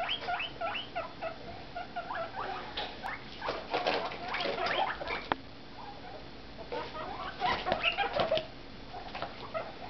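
Guinea pigs squeaking: a run of short, rising squeaks about three a second at the start, then louder clusters of squeaks a few seconds in and again later.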